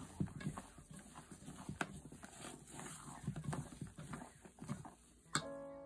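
Silicone spatula scraping and knocking against a stainless steel bowl in irregular strokes while folding thick sponge batter. Near the end a sustained musical note starts.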